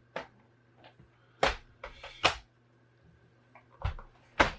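About five sharp clicks and knocks of a laptop's plastic case and parts being handled and pressed into place, the loudest near the end, over a faint steady low hum.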